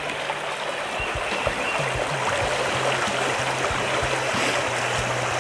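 Small trout stream's current running over a riffle: a steady rush of flowing water.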